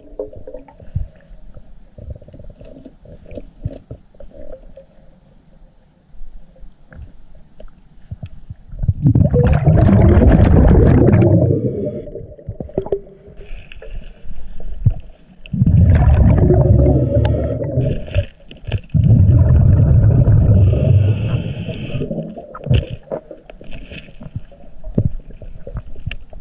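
Scuba diver breathing through a regulator underwater: three loud bubbling exhalations of two to three seconds each, the first about nine seconds in, with quieter clicks and faint hiss between.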